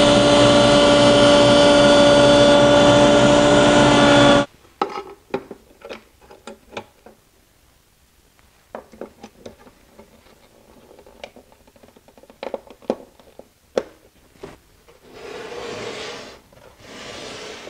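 A woodworking power tool runs and cuts a small board, a steady loud whine with a strong hum, then stops abruptly about four and a half seconds in. Scattered light knocks and clicks of wooden parts being handled follow, and near the end two short rubbing or hissing sounds.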